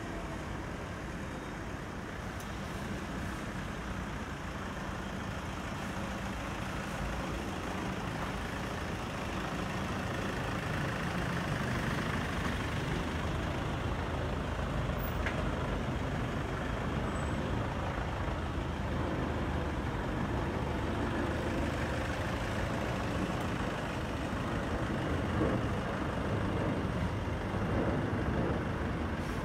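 Jet engines of an Airbus A320-216 airliner (CFM56-5B turbofans) passing overhead: a steady, broad rumble and rush that grows louder over the first ten seconds or so, then holds.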